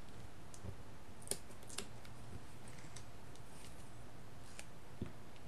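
A few faint, sharp clicks and ticks from handling a small paper strip and a liquid glue bottle, over a steady low hiss.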